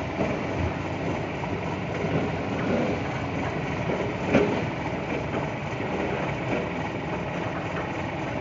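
Log-grapple excavator's diesel engine running steadily as it pulls pulpwood logs off a truck, with scattered knocks of logs and one sharp knock about four seconds in.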